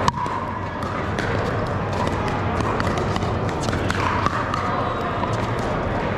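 Pickleball rally: irregular sharp pops of paddles striking a hard plastic ball, some from neighbouring courts, over the steady hum of a large hall.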